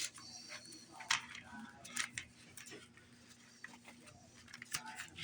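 Faint handling sounds of a DVD case and its booklet: a few sharp plastic clicks and light rustles, with clicks about a second in, at two seconds and near the end.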